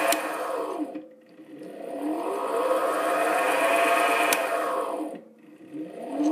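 Mini lathe spindle motor being switched between forward and reverse while running. After a click of the switch, the motor whine falls away to a stop and then rises back up to speed in the other direction. A second click about four seconds in sets off the same wind-down and spin-up again.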